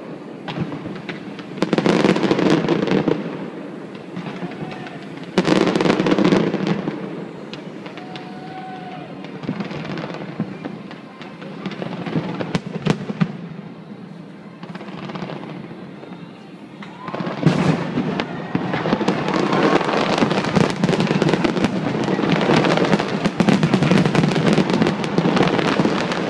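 A large aerial fireworks display: shells bursting and crackling in dense volleys. Loud salvos come about two and six seconds in, then it eases, then builds to a continuous barrage from about two-thirds of the way through.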